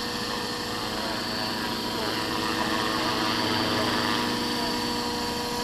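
Radio-controlled EC145 scale model helicopter running with its rotors turning, a steady mechanical whine holding a few fixed tones.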